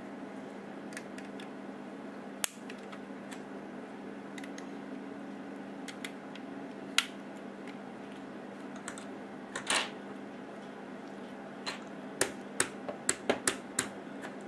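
Plastic Lego bricks clicking and tapping as pieces are handled, pressed together and set down on a table, with a short rattle partway through and a quick run of about six clicks near the end. A steady low hum lies underneath.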